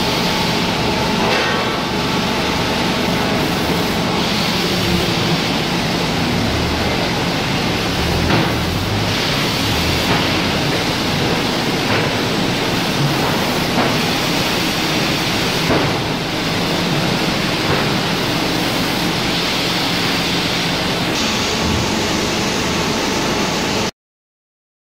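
Steady machinery noise of a palletizing line and its roller conveyors: a dense hiss with a low hum and a few faint knocks. It cuts off suddenly near the end.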